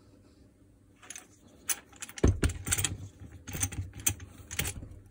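Clicks and knocks of hard plastic and metal as a Makita DDF486 cordless drill and its clamp-on side handle are handled, starting about a second in, with the loudest knock a little past two seconds in.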